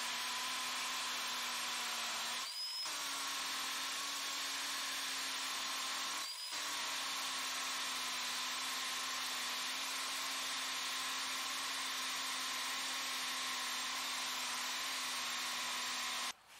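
Milwaukee half-inch cordless hammer drill running steadily as its bit grinds into a concrete block. It dips briefly twice, about two and a half seconds in and again about four seconds later, then stops abruptly near the end.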